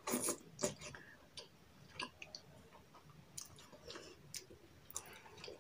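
Faint scattered clicks and taps of chopsticks on a plate, with chewing, while eating noodles.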